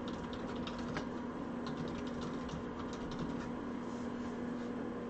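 Quiet room tone: a steady low hum with faint, scattered light clicks.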